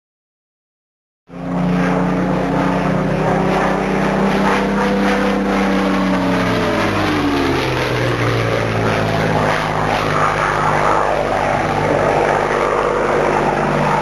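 Propeller aircraft engine drone of a plane flying past. It starts abruptly about a second in, and its pitch falls over a couple of seconds midway as the plane passes.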